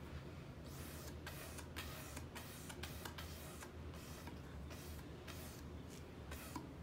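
Short, quick puffs of breath blown through a metal straw onto wet ink on a plastic sheet, a hissy series of about two or three puffs a second.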